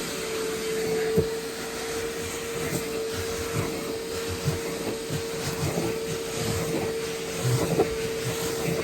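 Vacuum cleaner running steadily with an even whine, a few light knocks and scrapes as the nozzle works over the car's interior.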